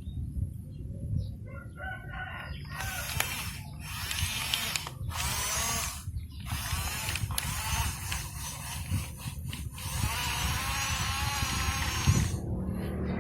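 Radio-controlled model bulldozer working: its electric drive motors and gears whine, the pitch wavering up and down with the load, over a steady low rumble.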